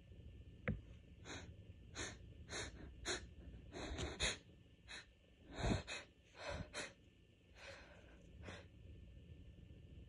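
A person's allergy sneeze build-up: a rapid run of about a dozen sharp, gasping breaths and sniffs, loudest around the middle, after a single click near the start.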